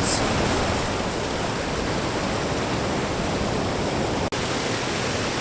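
Water pouring steadily over a man-made weir waterfall, a constant even rush, with a momentary dropout about four seconds in.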